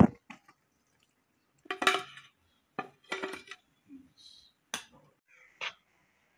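Metal spoon scraping and clinking against a pan while flour is worked into a cooked filling, in about six separate short strokes.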